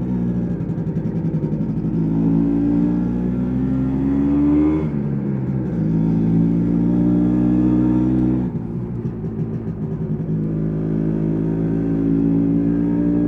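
MZ ETZ 250's single-cylinder two-stroke engine pulling under throttle while riding, its note rising steadily. It drops abruptly twice, about five seconds in and again past the middle, then climbs again each time.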